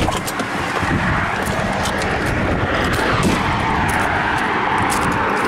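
Steady rushing road noise of a car driving.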